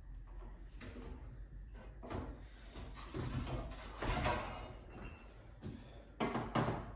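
A string of irregular knocks and clatter from objects being handled in a workshop, loudest about four seconds in and in two sharp knocks near the end.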